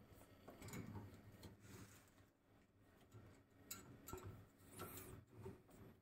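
Near silence, with a few faint light clicks and taps from something being handled, in two short spells.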